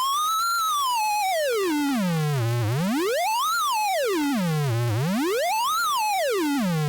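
Synthesized sonification tone whose pitch follows the border outline of Saudi Arabia. It rises briefly, then makes a long slide down to a low hum, followed by two swoops up to a high whistle and back down, about two and a quarter seconds apart. The tone has a buzzy, bright edge from its many overtones.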